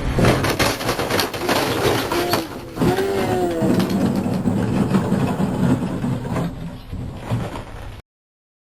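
Vehicle engine running under load while towing a car stuck in snow, with a rapid run of crunching and rattling clatter over it. A brief wavering whine near the middle; the sound cuts off suddenly about eight seconds in.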